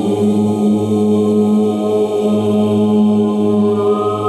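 Improvised shamanic chant: voices holding one long, low, steady drone with a ladder of overtones ringing above it.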